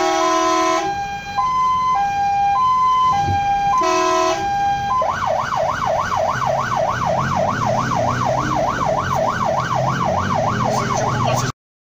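Fire engine's siren heard from inside the cab. It alternates between two tones in a hi-lo pattern, with a horn blast layered over it at the start and again about four seconds in. About five seconds in it switches to a fast yelp of rising sweeps, about three a second, over the truck's engine, and it cuts off suddenly near the end.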